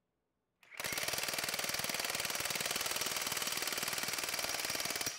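Ingersoll Rand W9691 1-inch cordless impact wrench breaking loose a nut tightened to about 1,100 foot-pounds. It starts under a second in as a rapid, steady hammering and runs about four and a half seconds before stopping as the nut comes loose.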